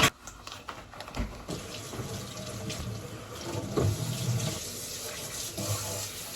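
Water running steadily from a kitchen tap into the sink.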